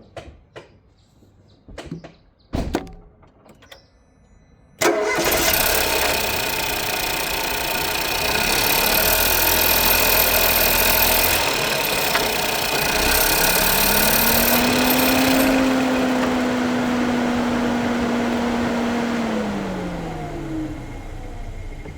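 A few light clicks and knocks, then about five seconds in a 2018 Ford Fiesta's engine starts suddenly and runs. Part-way through, a whine rises in pitch, holds for several seconds, then falls away as the engine noise dies down near the end.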